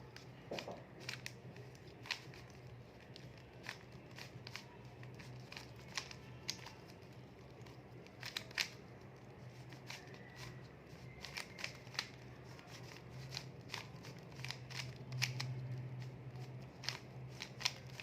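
Plastic 3×3 Rubik's cube being turned by hand: quick irregular clicks and clacks of the layers snapping round, several a second, over a faint steady low hum.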